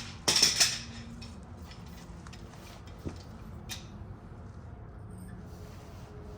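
Metal tools clinking and clattering: a short burst of sharp metallic clicks about half a second in, then a few faint single clicks.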